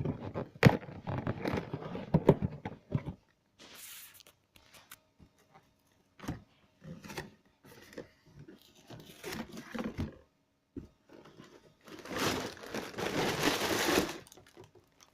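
Cardboard box being opened by hand: the perforated tabs tearing and the flaps pulled open, with crinkling and rustling of the contents. The sound comes in irregular bursts with scattered clicks, and the longest, loudest rustle falls near the end.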